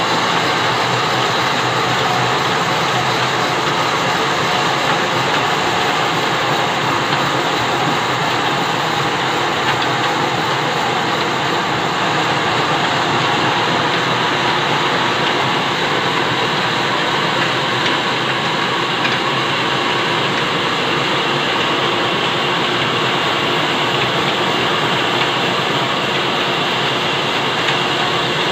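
Belt-driven bandsaw mill and its old stationary engine running: a loud, steady mechanical noise that holds unchanged throughout.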